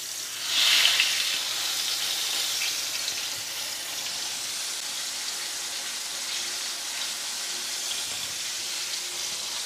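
Breaded chicken cutlet deep-frying in hot oil in a frying pan: a loud burst of sizzling swells about half a second in as the cutlet goes into the oil, then settles into a steady bubbling hiss.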